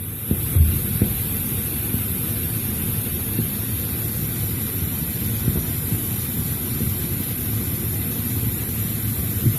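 Steady low rumble with irregular soft knocks, picked up by a microphone in a borehole casing sunk about 10 m into bedrock, with a constant faint high hiss over it. The uploader takes the rumble for underground tunnel-digging machinery.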